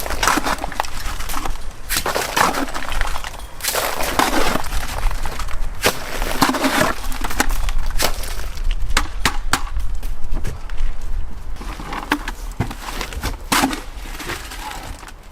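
Wet dash render, a cement mix with stone chips, thrown onto a wall in repeated splattering throws about every couple of seconds, with gritty clicks as the chips strike.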